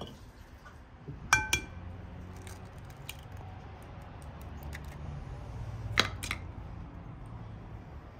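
Kitchenware being handled: a few sharp clinks and knocks, the loudest about a second in with a short ringing note, another pair near six seconds, and lighter ticks in between.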